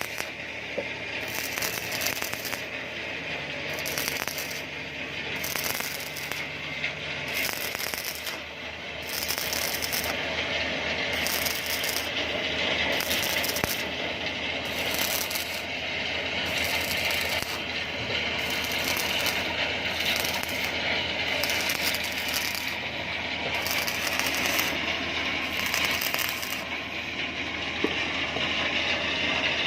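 Electric arc welding on a pipe joint: the arc's steady crackling sizzle, with a faint low hum for a few seconds near the start.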